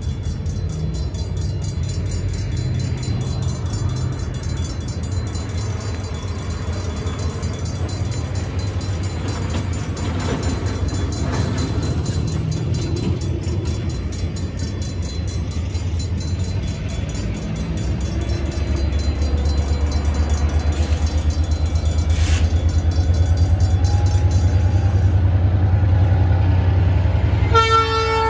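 An EMD SW1500 switcher locomotive's diesel engine runs as a low, steady rumble while the locomotive approaches. The rumble grows louder and takes on a pulsing beat about two-thirds of the way in. Near the end the locomotive starts sounding its air horn, a held multi-note chord.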